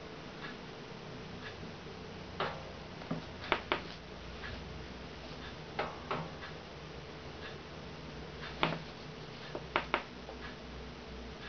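Scattered light clicks and taps, several in quick pairs, at irregular intervals over a steady low hum.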